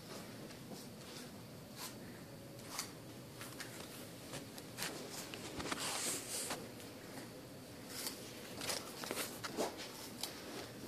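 Small child eating Cheetos Puffs: faint scattered small clicks and rustles, with a longer rustle about six seconds in.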